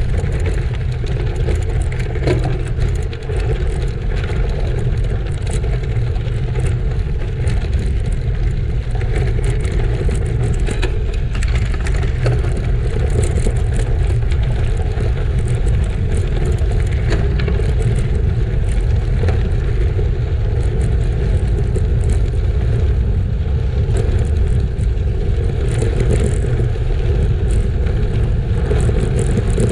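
Steady wind rumble on the microphone of a camera mounted on a moving bicycle, with the tyres rolling over gravel and small rattles and clicks from the bike.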